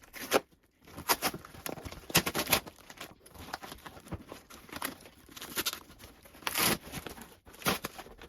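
A shipping package being torn open by hand: irregular ripping and rustling, with the loudest tears about two seconds in and again near the end.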